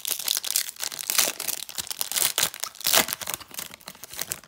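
Foil wrapper of a 2014 Panini Select football card pack crinkling and being torn open by hand: a dense run of crackles, with the loudest tear about three seconds in.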